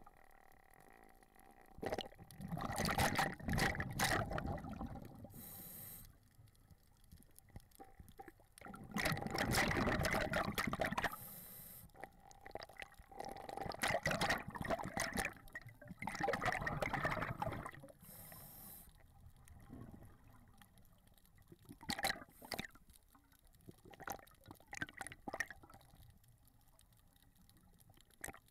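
Scuba diver's regulator breathing underwater. A short high hiss of inhalation comes roughly every six or seven seconds, followed by longer bubbly gushes of exhaled air.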